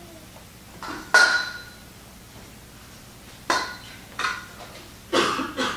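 A few sharp metallic clinks, each with a short ring at the same pitch. The loudest comes about a second in, and the rest are spread through the second half.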